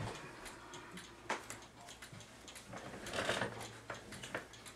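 Faint, uneven small clicks and taps of a clock's escapement wheel and its pivot against a perforated pivot gauge as the top pivot is tried in the gauge holes, with a soft rustle about three seconds in.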